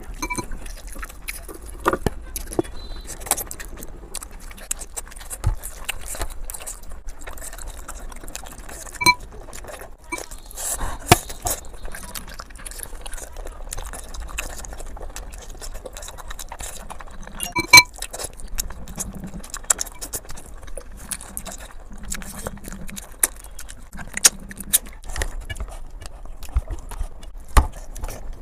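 Close-miked eating sounds of a mukbang: chewing and wet mouth noises with many small crisp clicks. Three bright metallic clinks ring out, at the start, about nine seconds in and about eighteen seconds in.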